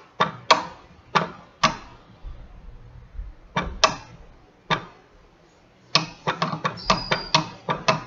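Homemade latching-reed-switch electromagnet oscillator clacking as it pulses its magnets: sharp clicks at irregular intervals, a few spaced out at first, then a quick run of them in the last two seconds.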